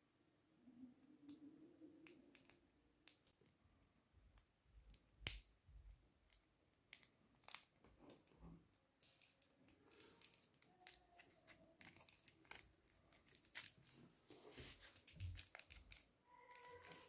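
Faint handling sounds of a plastic watch strap and its small metal buckle and spring bar being worked by hand: scattered small clicks and rubbing, with one sharper click about five seconds in.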